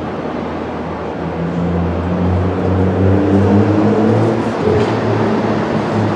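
Subway train running on elevated track, its motors whining in several tones that climb in steps as it accelerates, over a steady rumble that grows louder about three seconds in.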